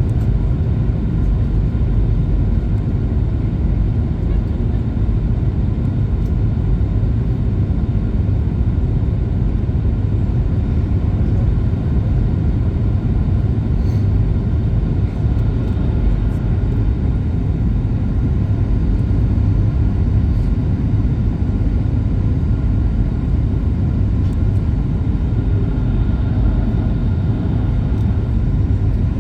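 Steady low rumble of a Boeing 737 MAX 8's CFM LEAP-1B engines and airflow on final approach, heard inside the passenger cabin, with faint steady whining tones over it.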